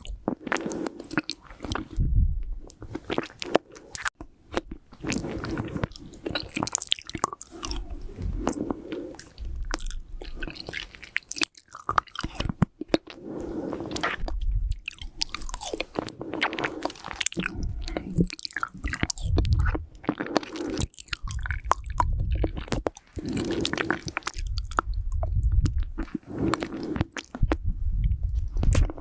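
Close-miked eating sounds of a hard lollipop candy: wet mouth sounds and sharp clicks of the candy in the mouth. Nose breaths blowing on the microphone come through as repeated low rumbles.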